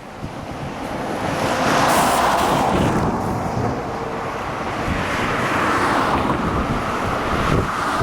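Strong gusty wind buffeting the microphone, swelling over the first two seconds and staying loud, over choppy lake water.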